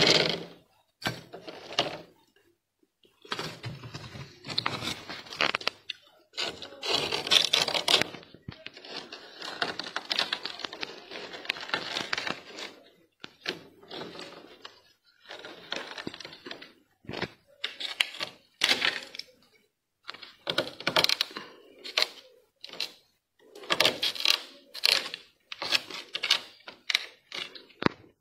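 Thick, snow-like freezer frost being scraped and broken away from the freezer walls by hand: irregular bursts of crunching and scraping with short pauses, coming in quicker, shorter bursts near the end.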